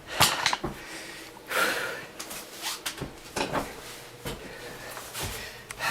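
Scattered knocks, clicks and scrapes from hand work, with a few breathy, noisy bursts in between.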